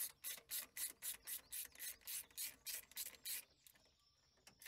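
Socket ratchet rasping in quick, even back-and-forth strokes, about four a second, as a new spark plug is run down into the cylinder head. It stops about three and a half seconds in.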